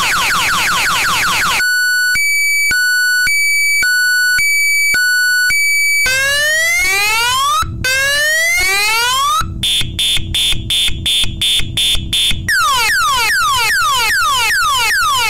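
DNI4050 12 V piezoelectric six-tone siren cycling through its tones: fast falling sweeps, then two pitches alternating every half second, then slow rising wails, then rapid on-off beeping, then fast falling sweeps again.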